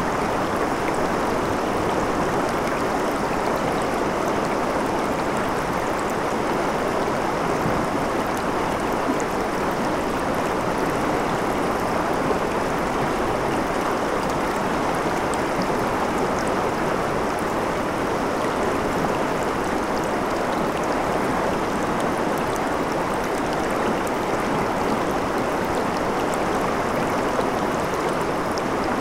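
Shallow, rocky river running over and around stones in a riffle: a steady, even rush of flowing water with small splashes and gurgles.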